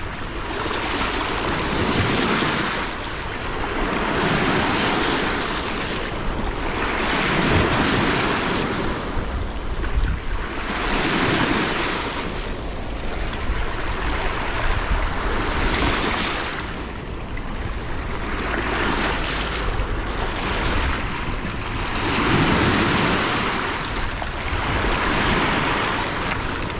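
River waves washing onto a rocky shore, a rushing wash that swells and fades every two to three seconds, with wind buffeting the microphone.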